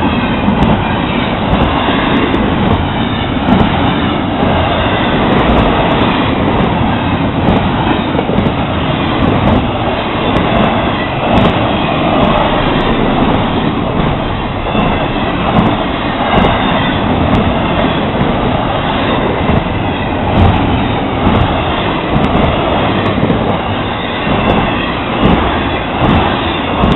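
Florida East Coast Railway intermodal freight train of container and trailer cars rolling past, a loud steady rumble and clatter of wheels on the rails.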